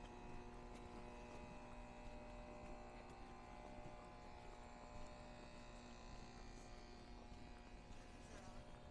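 Faint, steady mechanical hum made of several constant tones, with a few soft ticks over it.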